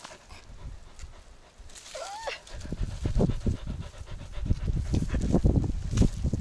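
Dog panting close to the microphone, fast short breaths that start about two and a half seconds in and grow louder.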